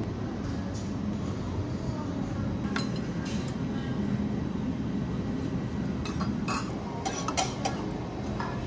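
Cutlery and dishes clinking a few times, once about three seconds in and in a cluster near the end, over a steady low background hum.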